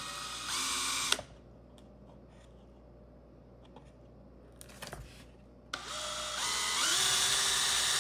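Power drill with a 15/64 in bit drilling a hole into a plastic subframe: a short run near the start, then a longer run from about three-quarters in, the motor whine rising as the trigger is squeezed.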